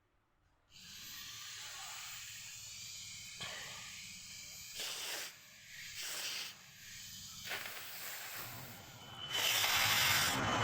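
Air forced through a runny nose: several short nasal blows or sniffs about a second apart, then a longer, louder nose blow near the end, over a steady hiss.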